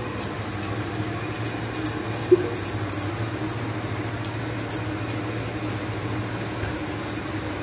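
Rolling pin working roti dough on a round wooden board, against a steady low machine hum. One short sharp knock about two seconds in.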